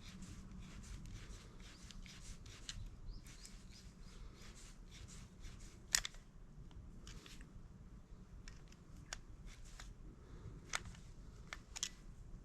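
A run of small scrapes and clicks, like hands and tools handling small metal parts, with one sharper click about six seconds in and a couple more near the end. There is a steady low hum underneath.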